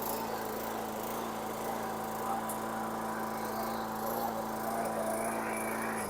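Briggs & Stratton 6.75 series 190cc engine on a Troy-Bilt self-propelled walk-behind mower running steadily at speed, then shut off right at the end and winding down.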